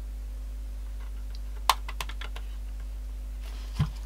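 Plastic clicks and a low knock from handling a Sanyo M-G95 Walkman cassette player after batteries go in. One sharp click comes a little under two seconds in, a few lighter clicks follow, and a knock comes near the end. No motor runs, because the unit is dead.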